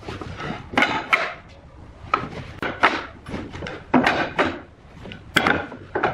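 Wooden parts knocking and clattering against each other as they are handled: a string of about a dozen sharp knocks at irregular intervals.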